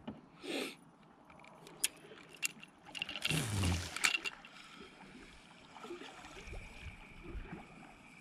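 Spinning rod and reel being handled in a kayak: a few sharp clicks and rattles from the reel and gear, with a short rushing noise about three seconds in.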